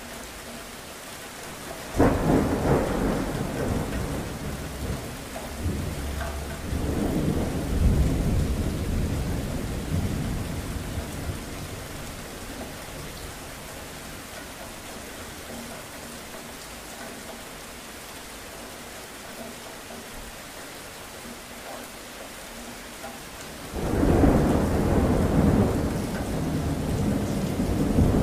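Steady rain with two long rolls of thunder. The first cracks in suddenly about two seconds in and rumbles on for several seconds, swelling again midway; the second breaks in near the end.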